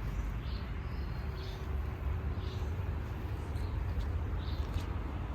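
Outdoor garden ambience: a steady low rumble with faint bird chirps about once a second.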